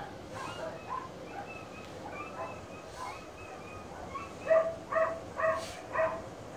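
French bulldog whining in short, high-pitched yips, then four louder whines about half a second apart in the second half.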